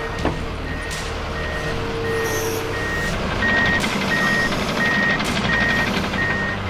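Excavator travel alarm beeping steadily, about one and a half beeps a second, over the machines' diesel engines running; the engine sound gets louder about three and a half seconds in.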